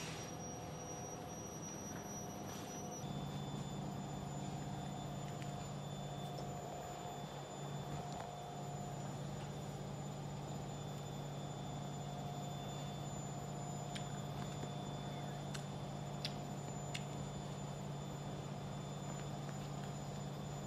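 A steady low hum, as of a motor or appliance running, with faint thin high tones over it. It steps up a little about three seconds in. A few faint ticks come near the end.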